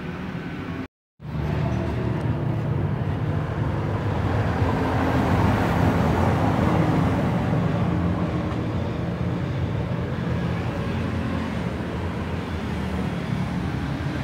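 Tractor diesel engine running steadily at idle, broken by a brief silence about a second in; a rushing noise swells over it in the middle.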